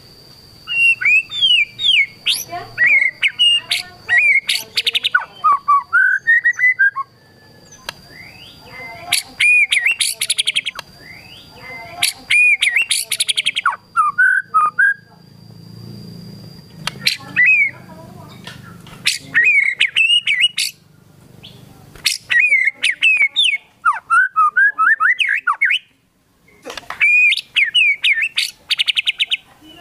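White-rumped shama (murai batu) singing hard in bursts of loud, varied whistled phrases that sweep up and down, mixed with fast rattling trills, with short pauses between bursts. A thin steady high tone runs under the song for the first half and then stops.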